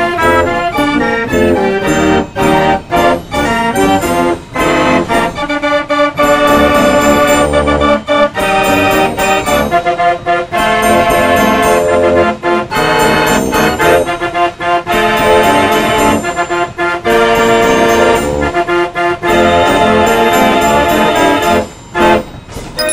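North Tonawanda style 165 band organ playing a tune: pipe chords shifting in a regular rhythm over a steady bass beat, with a short break near the end.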